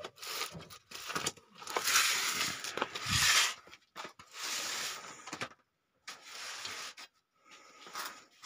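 Cardboard box of a chainsaw guide bar being handled, rubbing and scraping in uneven bursts of rustling with short breaks between them.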